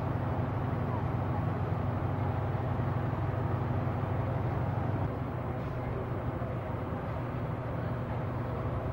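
Fire engine's engine running steadily at the fireground, a continuous low hum.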